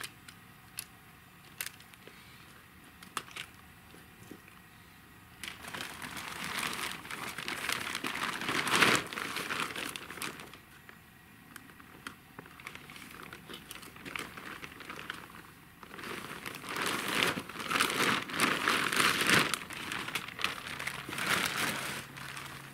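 Crinkling and rustling of kit being handled and packed away, in two spells of several seconds each, after a few light clicks in the first few seconds.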